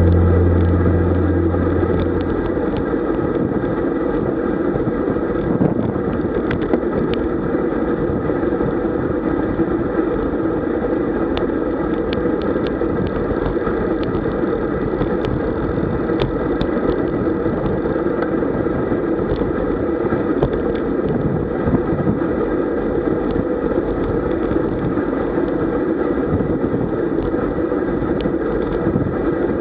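Steady wind and road noise of a road bicycle rolling at speed in a group ride, with scattered faint clicks. A music track fades out in the first couple of seconds.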